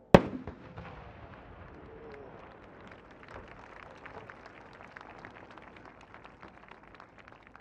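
A 10-inch (shakudama) aerial firework shell bursting with one sharp, very loud boom, followed by a long fading rumble sprinkled with scattered crackles.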